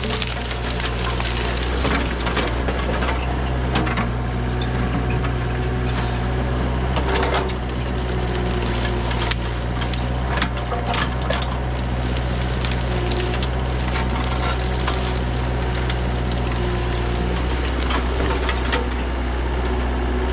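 Kubota KH-040 mini excavator's diesel engine running steadily while its bucket digs and pushes into a brush pile, with branches cracking and snapping throughout.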